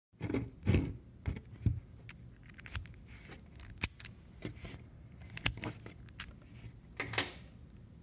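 Irregular sharp metallic clicks and knocks from a laminated steel padlock being handled, with its key worked in the keyway.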